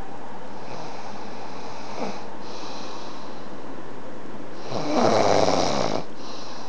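A sleeper snoring: soft breathing noises, then one long, loud snore about five seconds in.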